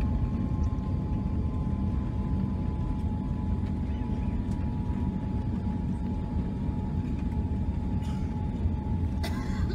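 Cabin noise of a Boeing 787-9 rolling out on the runway after touchdown, spoilers up: a steady low rumble with a faint steady whine over it. A brief rustle comes near the end.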